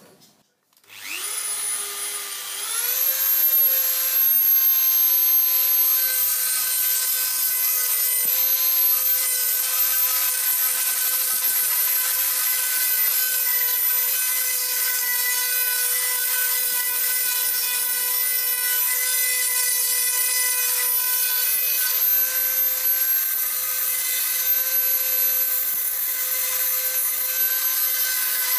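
Pencil grinder starting about a second in, its whine climbing to a steady high pitch, then running with a small burr grinding in the keyway of a steel shaft. It is cleaning grease and oil out of the keyway to give a bonding surface for spray welding.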